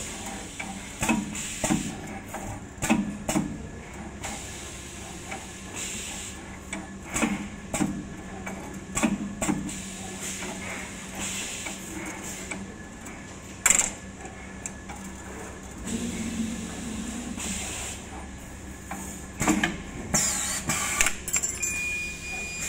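CNC 3D wire bending machine working 5 mm spring steel wire, with a steady motor hum under irregular sharp clicks and knocks as the bending head turns and bends the wire. There is a louder cluster of knocks near the end.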